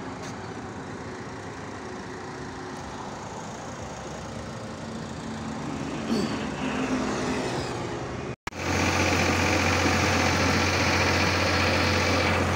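A vehicle engine running at low level, then after an abrupt cut about two-thirds of the way through, an Escort tractor's diesel engine running steadily on the road, louder, with a strong low hum, heard from the seat beside its upright exhaust.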